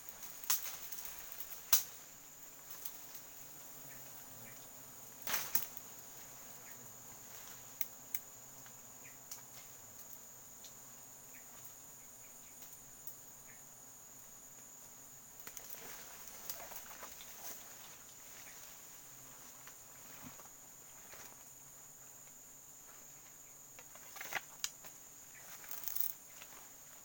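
Steady high-pitched drone of forest insects, with scattered sharp snaps and rustles of twigs and leaves as branches around a wild honeybee comb are cut with a blade, a few snaps near the start and a cluster near the end.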